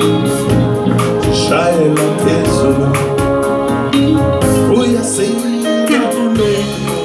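Live band playing: a drum kit keeping a steady beat under electric guitar and bass, with a male singer's voice over it.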